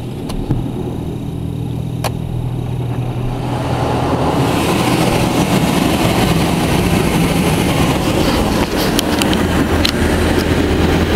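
Water jets of a Belanger Freestyler automatic car wash spraying the car, heard from inside the cabin: a steady low hum, then about four seconds in a loud, even hiss of water starts drumming on the body and glass.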